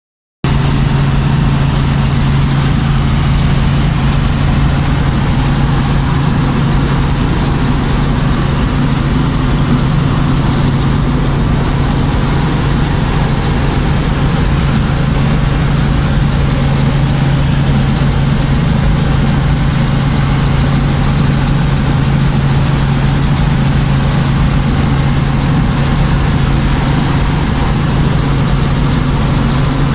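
Robinson R44 helicopter in flight, heard from inside the cabin. Its six-cylinder Lycoming piston engine and rotors make a loud, steady drone with a strong low hum under a rushing hiss.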